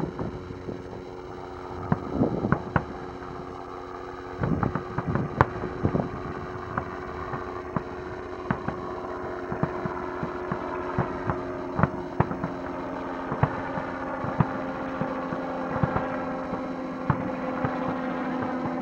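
Aerial firework shells bursting: a string of sharp bangs and crackles, loudest in the first six seconds, with a steady low hum underneath.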